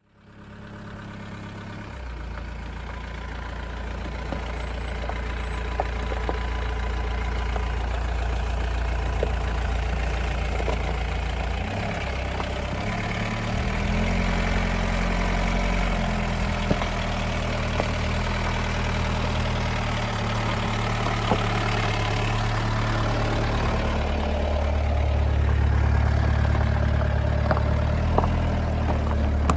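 Mahindra Scorpio's diesel engine running at a low crawl over a loose-stone track, fading in and growing louder as the SUV comes close. A few sharp clicks of stones under the tyres sound toward the end.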